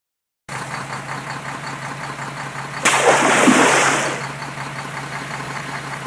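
A plastic toy construction truck drops into a shallow pool of water with a loud splash about three seconds in, over a steady engine-like hum.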